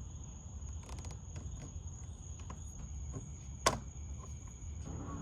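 Crickets trilling steadily in one high continuous tone, with a few faint clicks and one sharp click a little over two-thirds of the way through.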